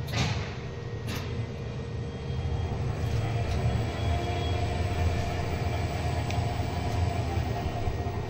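Geared elevator traction machine running: motor and gearbox hum steadily as the sheave drives the hoist ropes, with a faint whine coming in about three seconds in and a couple of clicks at the start. The lift is running properly again after repair.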